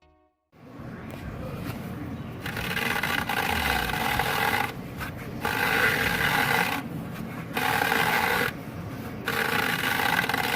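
Polaris UTV's stock BOSS secondary clutch squealing and ringing at low speed, in four loud episodes of a second or two over the running engine. It is the sign of belt scrubbing as the clutch's inner sheave vibrates on the transmission input shaft.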